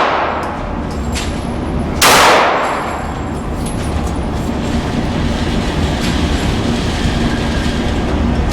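A Glock 19 9mm pistol fires a single shot about two seconds in, the report fading over most of a second. A steady low rumble runs underneath.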